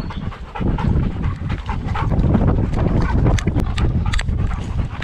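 Dog running hard, heard from a camera strapped to its back: fast panting mixed with the quick, irregular thud of its paws on the dirt trail.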